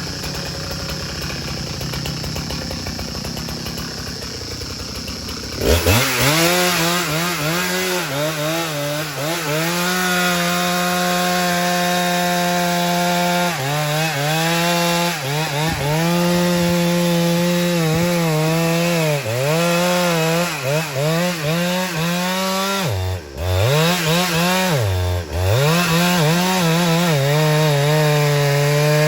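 Chainsaw running at low speed, then opened up to full throttle about six seconds in and cutting into a large meranti trunk. Its high engine note sags and recovers again and again as the chain loads up in the wood, with two brief deep drops near the end.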